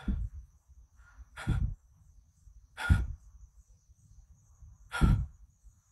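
A man breathing heavily into a phone's microphone: four loud exhales or sighs about one and a half to two seconds apart. A steady high-pitched tone runs underneath.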